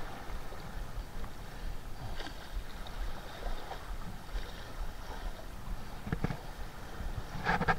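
Small sea waves lapping and splashing against shoreline rocks, with a steady low wind rumble on the microphone and a few faint knocks.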